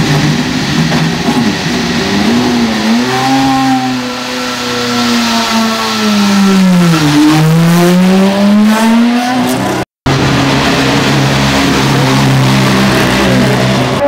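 Honda HSV-010 GT500 race car's 3.4-litre naturally aspirated V8 running, its revs sinking slowly to a low point about seven seconds in and then climbing again. After a short break, it holds a steady note as the car drives off.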